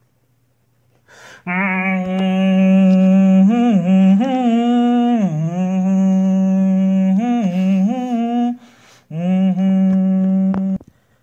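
A person humming long held notes with a few brief dips and rises in pitch, in two stretches separated by a short break near the end.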